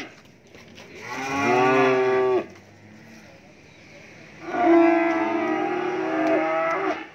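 Cattle mooing: two long calls, the first about a second in and lasting over a second, the second starting about halfway through and held for about two and a half seconds.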